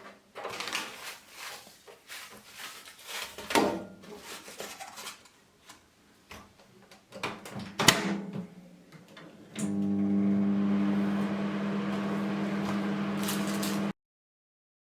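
Clicks and knocks of a bag of microwave popcorn being handled at a microwave oven, with one sharp click about eight seconds in. Then, about two-thirds of the way through, the microwave oven starts running with a steady low electrical hum, which stops abruptly.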